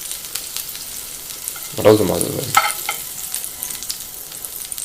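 Butter sizzling and crackling in a hot frying pan as it is spread across the pan, a steady hiss dotted with fine pops.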